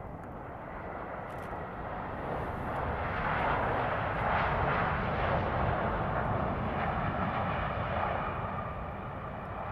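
Airbus A350-900's Rolls-Royce Trent XWB engines in reverse thrust during the landing roll. The noise swells from about two seconds in, is loudest around the middle, then eases off.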